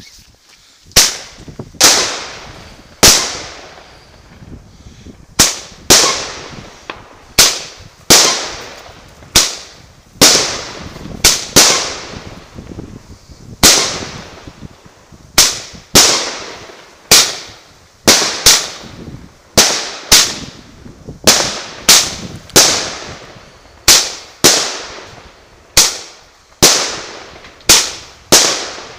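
Firework cake (battery) firing shot after shot: sharp bangs about once a second, sometimes two in quick succession, each ringing out briefly afterwards.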